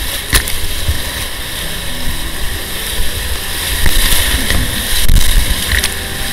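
Whitewater rapids rushing and splashing around a kayak, with a low buffeting rumble on the microphone. There is a sharp knock just under half a second in, and it is loudest about four to five seconds in, as water washes over the camera.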